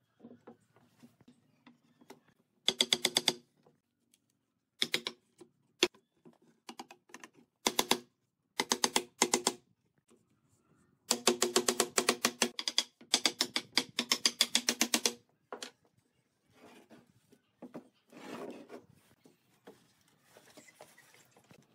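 Wooden mallet knocking on a pine chair frame in bursts of rapid strikes, about ten a second. The longest run lasts some four seconds, just past the middle. Softer handling knocks of the wooden parts follow near the end.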